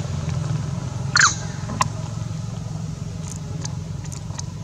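A steady low mechanical hum, like a nearby engine running, with one short high squeak about a second in and a few faint clicks after it.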